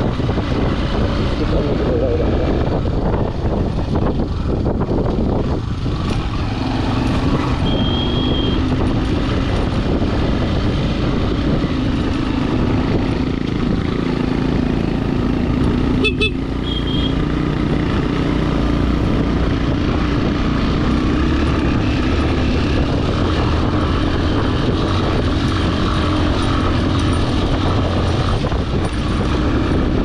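Motorcycle engine running steadily as the bike is ridden along a rough dirt track, heard from on board the bike.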